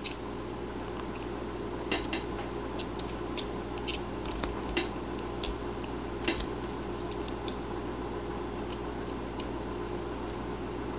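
Small detail carving knife cutting into a wood block by hand: irregular faint clicks and snicks as the blade bites and chips come away, over a steady low hum.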